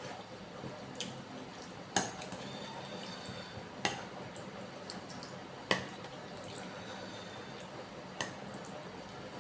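A spoon clinks against a bowl of bakso soup about five times, a second or two apart, some strikes with a short ring, with faint wet broth sounds between them.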